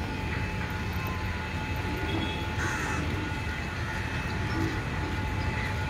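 Diesel multiple unit power car idling at a standstill: a steady low engine rumble with a thin, steady whine over it.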